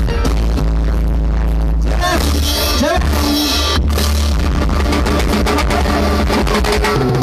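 Live band playing loud dance music on timbales and keyboards, with a note that bends up and down about two to three seconds in.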